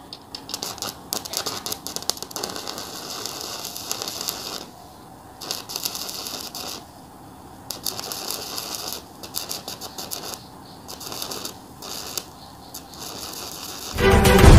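Stick (MMA) welding arc from a 120-amp inverter welder set at 60, crackling and sputtering in runs that break off and restart several times as the electrode is struck. Loud music starts near the end.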